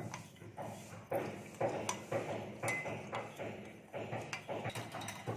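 Steel spoon stirring water in a glass bowl, clinking against the glass about twice a second, with one brief ringing ping a little past the middle, as sugar and salt are stirred in to dissolve.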